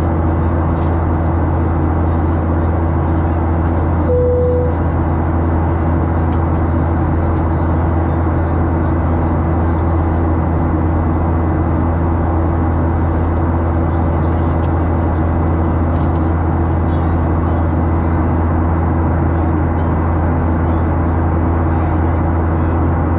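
Steady drone of a Boeing 737's turbofan engines and airflow heard inside the passenger cabin in flight, with a constant low hum. A single brief steady tone sounds about four seconds in.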